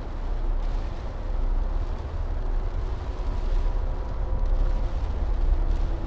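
Dark ambient film score: a deep, steady rumble with faint held tones above it.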